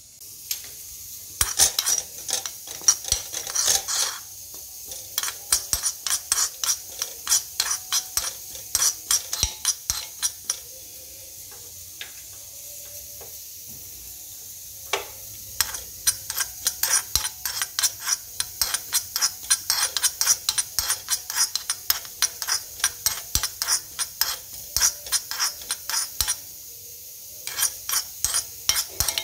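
A metal spoon stirring and scraping sesame seeds as they dry-roast in a small pan: quick runs of scrapes, several a second, with a few seconds' pause about a third of the way through and a short pause near the end.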